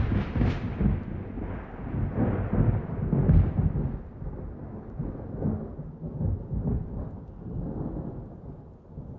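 Thunder in a rainstorm: a long rolling rumble with several sharper cracks in the first few seconds, slowly dying away over steady rain.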